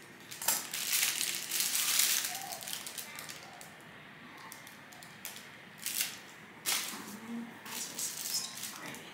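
Plastic piping bags of royal icing rustling and crinkling as they are handled: one long stretch of crinkling near the start, then several short sharp crinkles and clicks.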